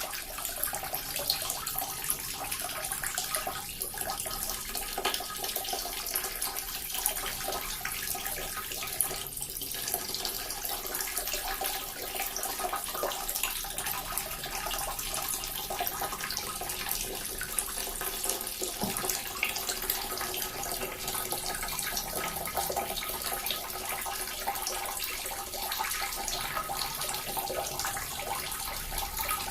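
Small water fountain splashing steadily, water falling and trickling into a pool with many small splashes.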